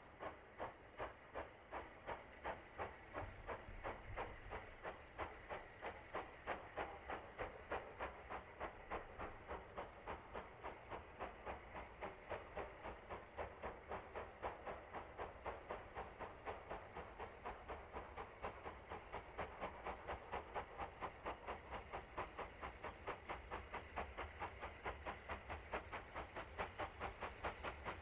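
Maunsell Q class 0-6-0 steam locomotive 30541 hauling a goods train towards the listener, its chimney exhaust beating evenly at about three beats a second over a low rumble of the moving train.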